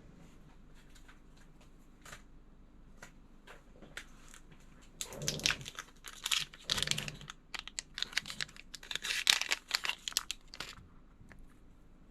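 A few faint clicks, then several seconds of loud crinkling and rustling, like plastic or packaging being crumpled or torn by hand. The crinkling starts about five seconds in and stops shortly before the end.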